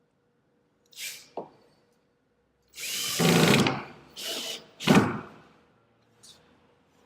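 Power drill driving a screw to fix a mounting cleat to the wall, run in several short bursts: a brief one about a second in, a longer run near the middle, then two quicker ones.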